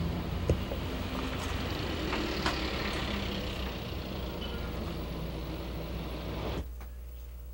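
Steady rumbling background noise with a few sharp clicks. It cuts off suddenly near the end, leaving a quieter low hum.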